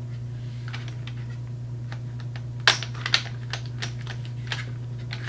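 Small plastic cube-shaped pieces of a Giiker Smart Four board game clicking and knocking in their storage tray as fingers work to pry the first piece loose, with two louder clacks close together about two and a half to three seconds in. A steady low hum runs underneath.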